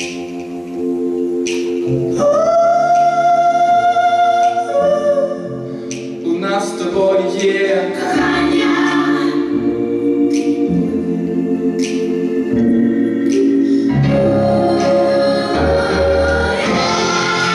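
A young man sings a Ukrainian pop ballad live into a handheld microphone over an amplified instrumental backing, holding some long notes.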